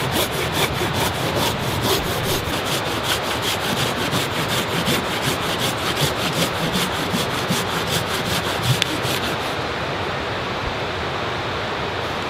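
Folding hand saw cutting through a small dry conifer trunk with quick, even back-and-forth strokes of the blade rasping through the wood. The strokes stop near the end, leaving a steady hiss.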